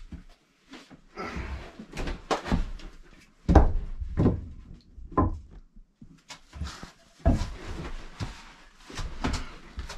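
Irregular wooden knocks and thumps from a rough-cut lumber cabinet frame as boards and a tool are handled against it. The loudest knocks come about three and a half seconds in and again near seven seconds.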